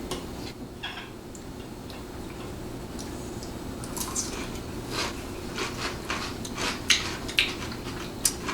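People eating at a table: scattered sharp clicks and crunches of pickle spears being bitten and chewed and of dishes and cutlery being handled. They come more often in the second half, over a steady low hum.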